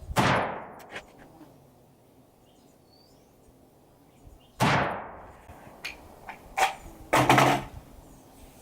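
Two rifle shots from a Romanian PSL semi-automatic rifle in 7.62x54R, about four and a half seconds apart, each ringing off with a long echo. A few smaller clicks and knocks follow the second shot.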